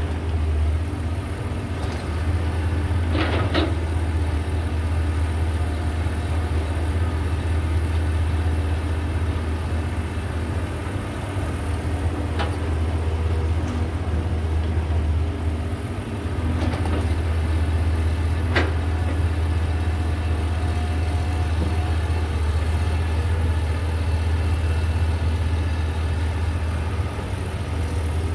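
Diesel engine of a Caterpillar 320 GC excavator running steadily as it loads soil into a dump truck, with a few short knocks about three, twelve and eighteen seconds in.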